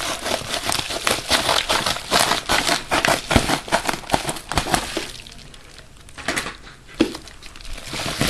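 Packaging crinkling and crackling as a mailed package is opened: dense rustling for about five seconds, then quieter with a couple of single clicks.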